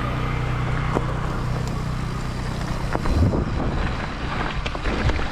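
Mountain bike riding: a steady low hum of tyres rolling with wind on the microphone, turning rougher about three seconds in with clicks and rattles from the bike.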